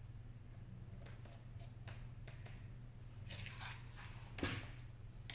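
Handling noise from an iPhone 6 display assembly being worked on a rubber repair mat: faint clicks and scrapes, a louder scrape about three seconds in, and one sharp knock near the end, over a steady low hum.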